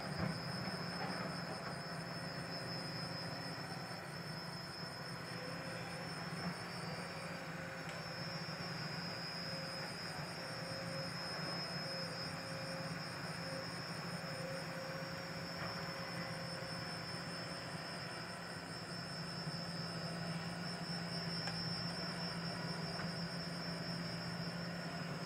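Steady low engine rumble of heavy earthmoving machinery working on a construction site, with a constant high-pitched tone over it.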